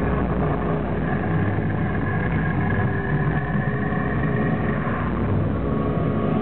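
Steady low rumbling drone with several long held tones above it, part of a stage show's soundtrack played through the hall's speakers.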